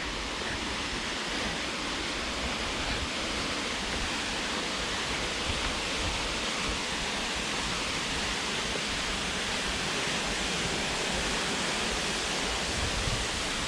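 Waterfall rushing: a steady, even roar of falling water, slowly growing a little louder.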